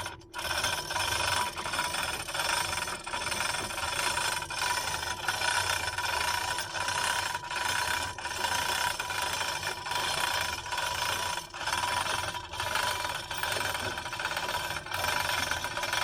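An engine running steadily with a rattle.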